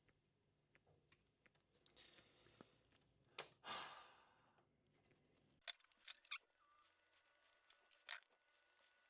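Near silence with faint handling noises from bench work: a brief soft rushing swell about three and a half seconds in, then a few sharp clicks. A faint low hum cuts off suddenly about halfway through.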